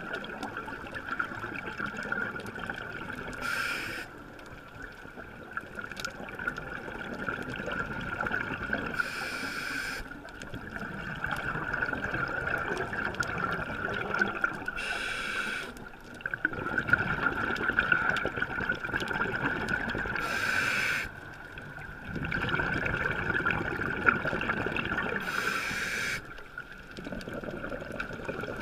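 Scuba diver breathing through a regulator underwater: five short hissing inhalations, about one every five and a half seconds, each followed by a few seconds of bubbling exhalation, over a steady high tone.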